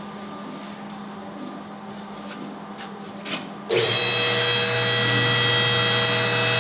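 A small electric motor starts suddenly a little over halfway through and runs steadily at one even pitch, like a power tool or shop machine. Before it, only low room hum and a few faint clicks.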